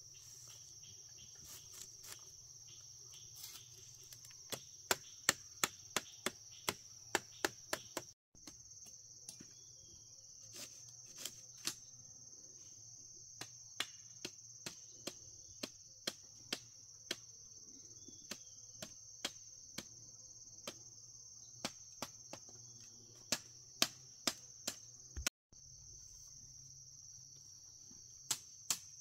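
Steady high-pitched insect chorus, with runs of sharp knocks at about two to three a second, several times over.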